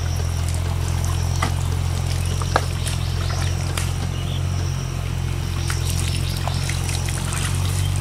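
Water pouring and trickling as plastic-bottle fish traps are handled and lifted out of a shallow flooded field, over a steady low hum.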